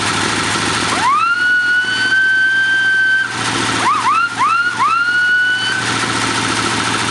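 Chrome whistle mounted on a running Ford flathead V8, blown by hand: one long blast that slides up to a steady high tone, then three quick rising toots and another held blast, over the engine idling.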